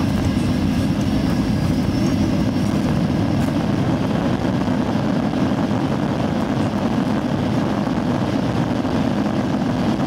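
Steady low rumble inside the cabin of a passenger aircraft rolling along the runway: engine and wheel noise, with a faint high whine that fades away in the first few seconds.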